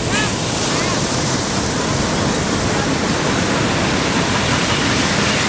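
Steady rushing noise of ocean surf, loud and unbroken.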